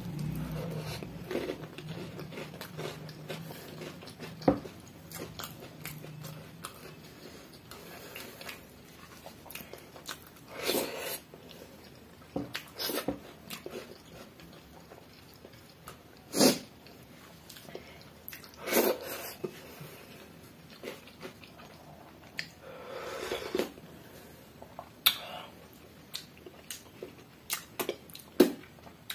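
Close-up eating sounds: chewing of mouthfuls of pani bhat (watered rice) eaten by hand, with scattered sharp clicks and short wet bursts, among them fingers scraping a steel plate.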